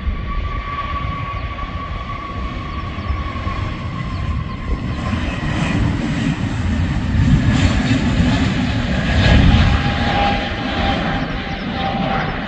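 Airbus A321neo's twin turbofan engines at take-off thrust through the take-off roll and lift-off: a deep rumble with a steady whine, building to its loudest about nine seconds in as the jet passes, then easing as it climbs away.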